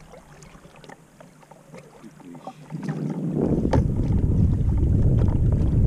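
A few faint clicks and taps, then about three seconds in a strong gust of wind buffets the microphone with a loud, uneven low rumble that carries on.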